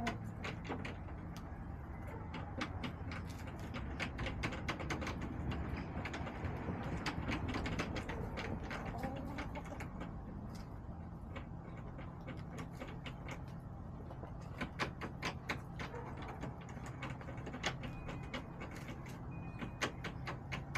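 Chickens pecking close to the camera: many sharp, irregular taps over a low steady hum.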